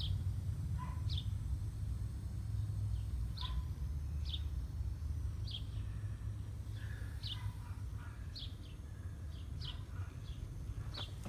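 Small birds chirping in short, high notes every second or so, over a steady low rumble.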